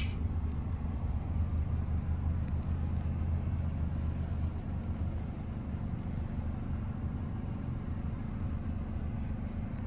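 Steady low hum of a 2022 GMC Terrain AT4's 1.5-litre turbo four-cylinder idling, heard from inside the cabin.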